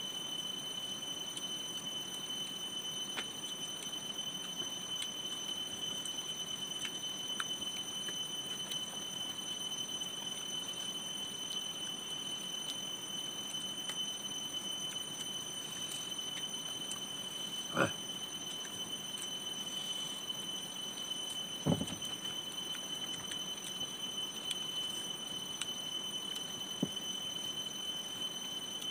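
Steady background hiss with a constant high-pitched whine. Two brief short sounds come about two-thirds of the way through.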